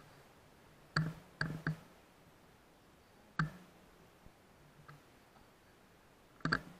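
Short, sharp clicks from handling the air rifle and its night-vision scope: three in quick succession about a second in, one more in the middle, and a quick pair near the end.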